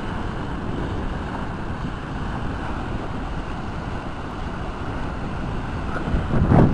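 Wind blowing across the microphone as a steady low rumble, with a stronger gust near the end.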